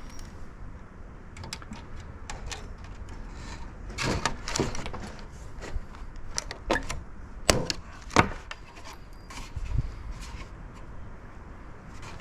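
Irregular knocks and clicks of hand work with tools and material, with a few sharper clicks a little past the middle.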